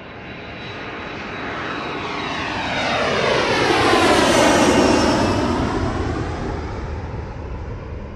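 An airplane passing overhead: its engine noise swells to a peak about halfway through and then fades away, with a whooshing sweep that dips in pitch and rises again as it goes by.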